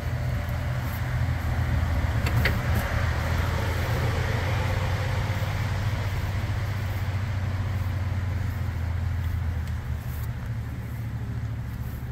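Steady low rumble of engines running, with a single sharp click about two and a half seconds in.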